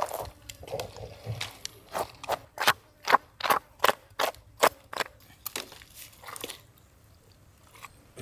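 A knife cutting through the belly cavity of a large fish being gutted: a run of short, sharp strokes, about three a second through the middle, thinning out near the end.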